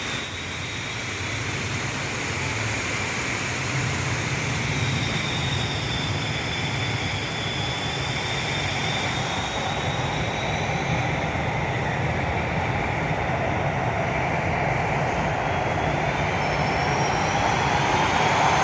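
Wind noise from full-height platform screen doors at an underground station: air driven along the tunnel by a train whooshes steadily through the door gaps like a vacuum cleaner, with thin whistling tones drifting above it. It grows a little louder near the end.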